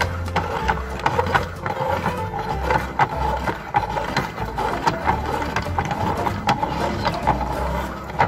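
Meat grinder grinding food, with a dense run of rapid clicks, crackles and crunches over low thuds.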